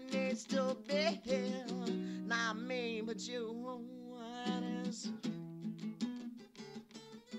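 Song with a strummed guitar under a wordless sung line for about the first half, then the guitar carries on alone, strumming and picking.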